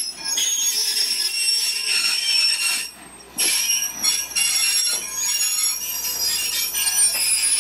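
Passenger coaches of a steam-hauled train rolling slowly into a station, their steel wheels squealing in several steady high-pitched tones as the train brakes to a stop. The squeal drops out briefly about three seconds in.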